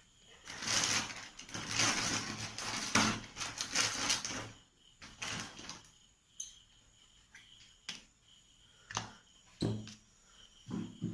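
Handling noises while soldering a component onto a circuit board: several seconds of rustling and scraping, then a few separate sharp clicks.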